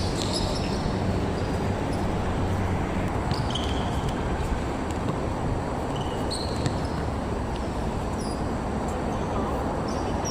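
Sounds of a basketball game in play: a ball bouncing on the court and sneakers squeaking a few times, over a steady background hiss.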